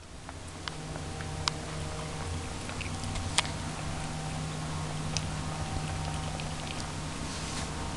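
Scattered light clicks and soft pattering from cats: kittens moving about in a wire crate and a cat eating from a tub beside it, over a steady low hum.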